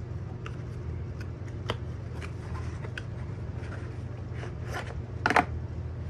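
Cardboard box being opened and handled, with scattered clicks and rustles as the flap is worked and the packed multi-tool in its nylon sheath is slid out, and a louder burst of handling noise about five seconds in. A steady low hum runs underneath.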